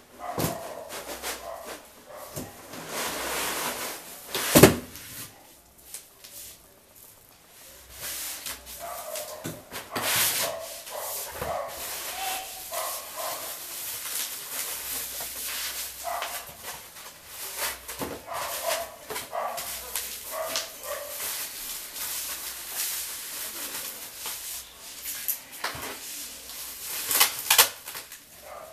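Polythene wrap rustling and crinkling, with short squeaks from the foam packing blocks, as a flat-screen TV is unpacked from its carton. A sharp knock about four and a half seconds in.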